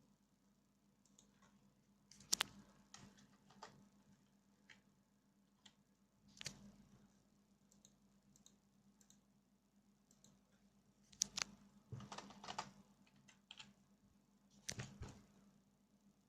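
Scattered sharp clicks of a PC's keyboard and mouse being operated, in a quiet room. The loudest single click comes about two seconds in, with a closer group of clicks around eleven to thirteen seconds in and another just before the end.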